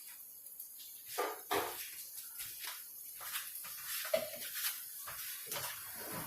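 A utensil scraping and knocking against a pot several times as dry rice is stirred in hot oil, over a faint sizzle of the oil.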